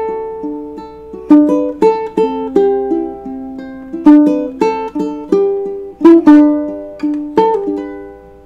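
Ukulele played by hand: a slow melody of plucked notes and strummed chords, each ringing and dying away, with the last notes fading out near the end.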